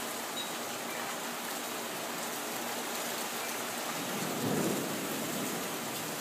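Steady hiss of monsoon rain falling, with a low rumble of thunder swelling about four seconds in.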